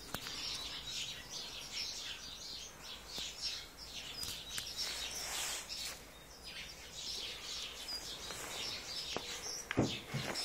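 Aviary birds chirping: a busy, overlapping stream of short high chirps and calls. A couple of low thumps come near the end.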